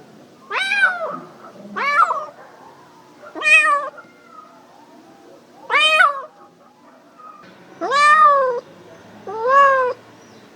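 Domestic cat meowing six times, each meow under a second and a second or two apart, the later ones longer with a pitch that rises and then falls.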